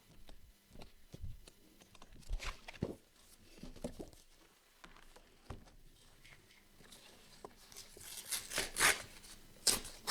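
Paper being handled by hand for a scrapbook page: scattered soft taps and rustles, then a quick run of sharper, scratchy tearing or crinkling strokes about eight seconds in.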